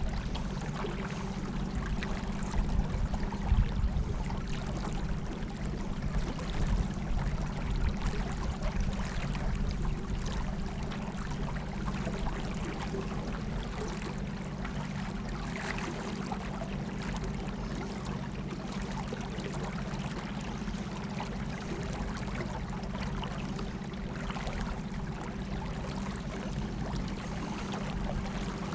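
Small boat under way on a fast river: water rushing and splashing along the hull over a steady low hum from its battery-powered motor.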